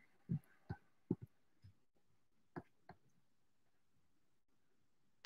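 Faint, scattered clicks and light knocks in a quiet room, about eight of them at uneven intervals, with a sharper, louder click at the very end.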